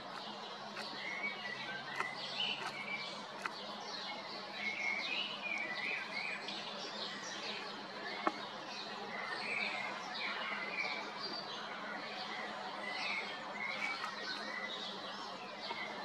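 Dawn chorus: several songbirds singing at once, a dense overlap of short chirps and trills, over a faint steady low hum. A single sharp click comes about eight seconds in.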